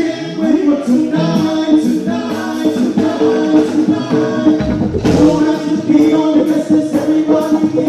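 Live Junkanoo-style pop band playing with male vocals, singing over a steady drum beat at about two beats a second.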